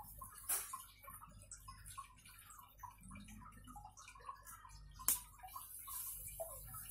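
Irregular small ticks and light rustling as hands work through the fronds of a maidenhair fern, pulling out dead stems, with two sharper clicks, about half a second in and about five seconds in.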